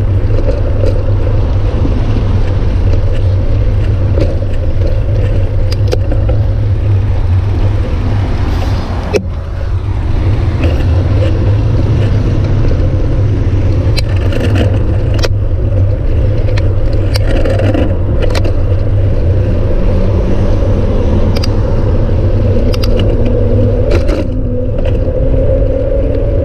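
Riding a bicycle along a road shoulder: a steady low rumble of wind on the bike-mounted camera's microphone, with road traffic and scattered clicks and rattles from the bike.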